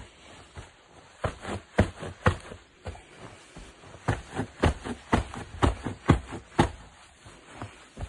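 Shoed feet trampling on a mattress: a quick run of soft thuds, about four a second, starting about a second in, pausing briefly, then starting again about four seconds in and stopping near the end.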